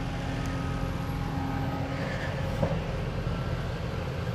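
Heavy diesel construction machinery running steadily, a low engine rumble with faint whining tones over it, and a single clank a little past halfway.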